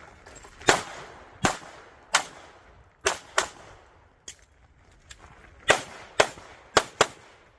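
Pistol shots fired in a USPSA stage run: about nine sharp reports at an uneven pace, including two quick pairs, each with a short echo. A fainter crack comes about halfway through.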